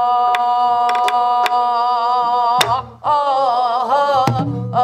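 A woman singing a Namdo folk song (minyo) in the Korean folk style. She holds one long steady note, then moves into a heavily shaking, wavering line. She accompanies herself on a buk barrel drum, with a few sharp stick strokes and two deep drum strokes.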